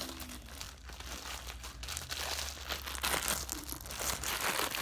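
Hands squeezing and stretching butter slime: a soft, irregular crackly rustle of many small clicks, a little louder in the second half.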